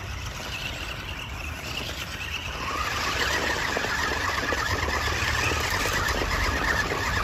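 Small electric motors and gears of a toy remote-control stunt car whining as it drives over rough ground, getting louder about three seconds in.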